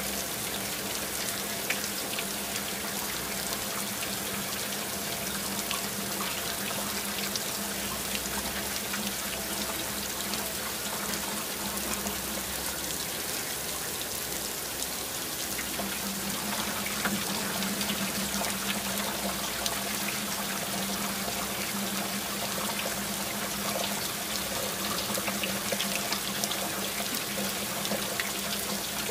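Heavy rain falling: a steady, dense hiss of water with many small ticks of drops. A steady low hum runs underneath.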